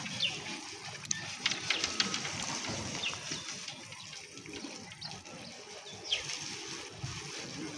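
Outdoor building-site background: a steady hiss with a few sharp taps clustered in the first two seconds and several brief, falling high chirps.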